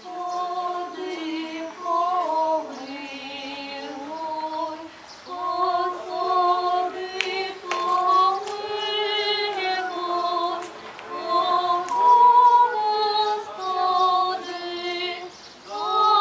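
A small choir of women's voices singing Orthodox liturgical chant unaccompanied, in slow, held chords. The phrases are broken by short pauses.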